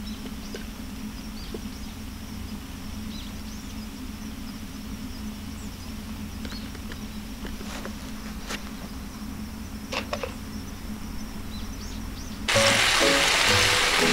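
Steady low hum with faint high chirps and a few light clicks, then about twelve seconds in, sudden loud sizzling from foil-wrapped spare ribs cooking on a cast-iron griddle plate over a gas camp-stove burner.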